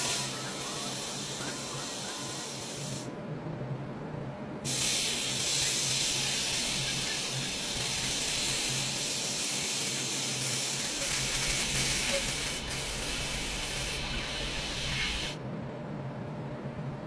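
Paint-shop robots' spray guns hissing over a car body, with a steady machine hum underneath. The hiss stops twice, about three seconds in and again near the end, each time for a second or two, as the spraying pauses.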